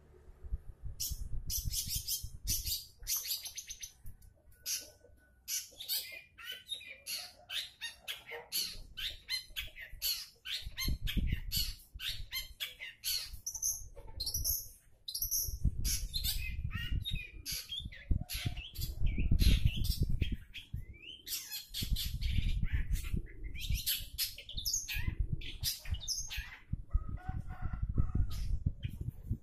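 Caged long-tailed shrike (cendet) singing a fast, varied run of short, sharp chirps and harsher notes that starts about a second in. A low rumble sits underneath at times.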